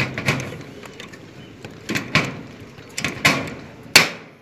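Hand lever punch squeezed onto thin corrugated metal roof sheeting to punch a rivet hole: a series of sharp metallic clicks and snaps as the jaws close and the sheet gives, the loudest near the end.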